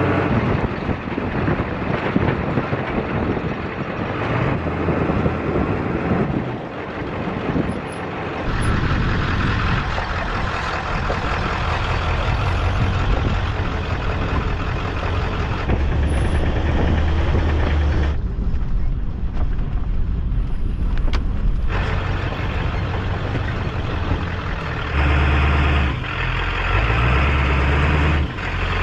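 1996 Ford F350's 7.3 L Powerstroke turbo-diesel V8 running as the truck rolls down a dirt road, with tyre noise on the dirt. The sound is fairly steady throughout.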